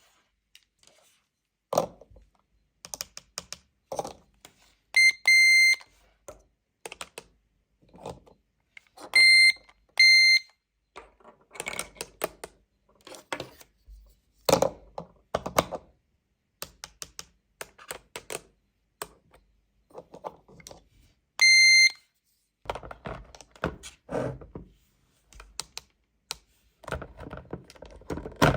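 Toy cash register beeping: five short beeps at one high pitch, two in quick succession about five seconds in, two more around nine and ten seconds, and one past the twenty-second mark. In between come many light clicks and taps of buttons being pressed and small plastic products being handled.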